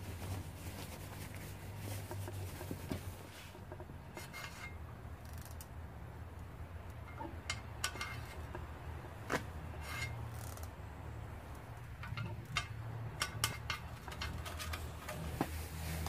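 A MagneGas torch flame burning with a low steady rumble, with scattered light metallic clicks and taps throughout, several of them between about seven and fourteen seconds in.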